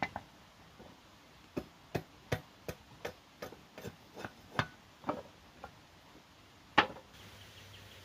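Wooden boards being knocked and tapped together by hand: a run of about a dozen sharp, hollow wood knocks at an irregular two or three a second, with one louder knock near the end.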